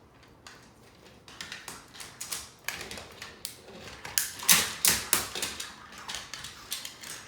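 Irregular clicks and clacks of plastic magnetic building tiles and pieces being handled and snapped together, with a few louder clacks about halfway through.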